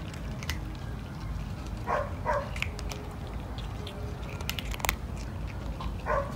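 A cat crunching dry kibble close up, with scattered sharp crunches and clicks. A short pair of calls from another animal sounds twice, about two seconds in and near the end.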